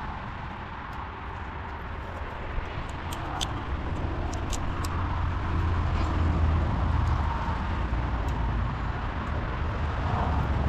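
Steady low outdoor background rumble, with a few faint light clicks of a small screwdriver working the terminal screws of a 13-pin trailer plug.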